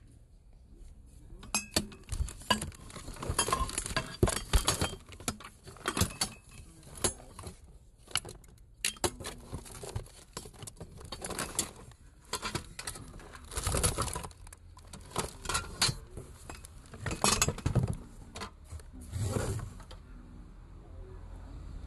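Irregular clinks and clatters of small hard objects being handled, in bunches from about a second and a half in until a couple of seconds before the end.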